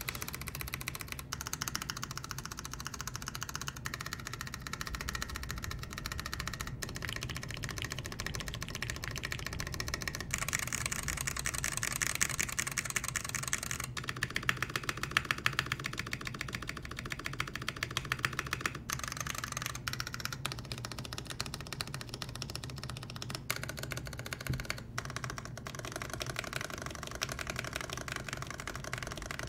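Fast, continuous typing on a mechanical keyboard with stock, unlubed Kailh Box Brown tactile switches, a brass plate, GMK keycaps and a polycarbonate case, broken by a few brief pauses.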